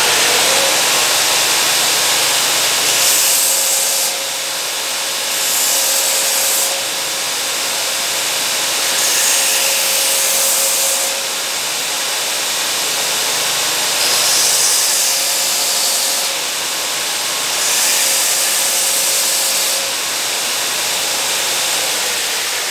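Belt grinder running steadily while a wooden axe handle is pressed to its coarse sanding belt in about five short passes, each a louder hiss of wood being ground away. The handle's end is being slimmed to fit the axe's eye.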